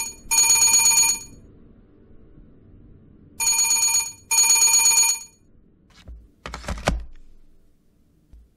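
Desk telephone ringing in a double-ring pattern: two short rings, a pause of about two seconds, then two more rings. About six and a half seconds in, a short clatter comes as the handset is picked up.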